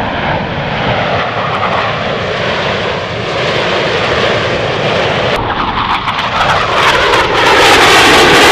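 Aircraft engine noise from an airplane flying past, slowly falling in pitch, then swelling much louder over the last three seconds.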